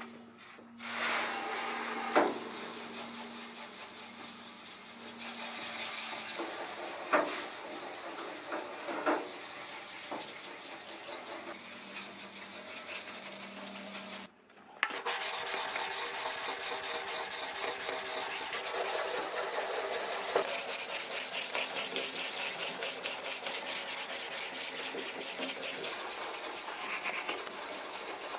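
Hand wet sanding of primed car sheet metal: sandpaper rasping back and forth over a wet surface, with a few light knocks. After a short break about halfway, the rasp is closer and louder, in quick, even strokes.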